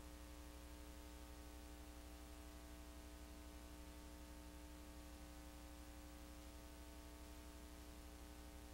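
Near silence: a steady low electrical hum under faint hiss, unchanging throughout.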